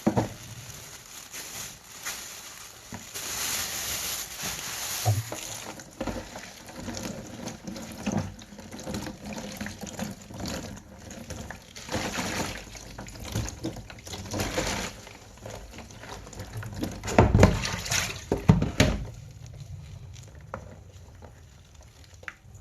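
Tap water running into a kitchen sink with uneven splashing as chives are rinsed by hand. A couple of louder knocks come near the end, and the water sound drops off shortly after.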